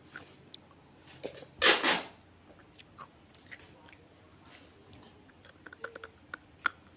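Close-up mouth sounds of a person eating: one loud crunch about a second and a half in, then scattered small clicks and smacks of chewing.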